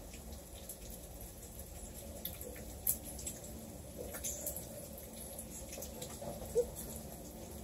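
Food frying in oil in a pan on the stove: a steady sizzle with a few sharp pops of the hot fat.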